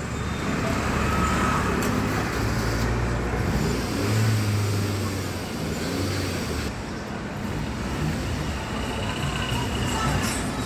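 A motor vehicle engine running at low speed, a steady low rumble that swells a little and eases a few times.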